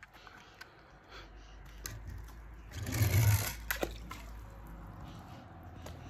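A brief splash of water about three seconds in, lasting under a second and the loudest sound here, with light clicks and taps before and after.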